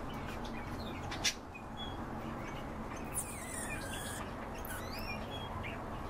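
Captive cage birds chirping and calling: scattered short chirps, with a longer, harsher call around the middle. A single sharp click about a second in is the loudest sound, over a steady low hum.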